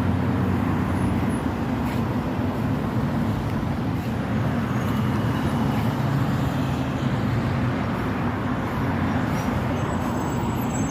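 Steady outdoor road-traffic noise: a continuous low rumble and hum with no distinct events.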